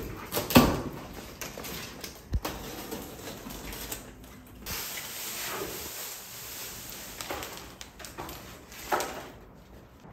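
Knocks, thumps and rustling of plastic packaging as a small two-door refrigerator is unboxed and moved into place. The loudest knock comes about half a second in, a short low thump follows about two seconds later, and there is another knock near the end.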